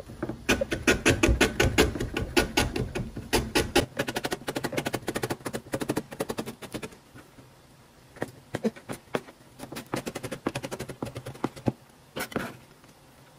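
Kitchen knife slicing lemongrass on a plastic cutting board: a quick run of knife strikes, several a second, that thins out after about halfway into shorter bursts with pauses between.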